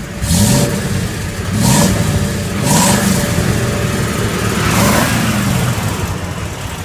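Ford F-350's engine revved four times, the pitch rising and falling on each, through new headers and a dual-inlet semi-truck muffler, heard close under the truck.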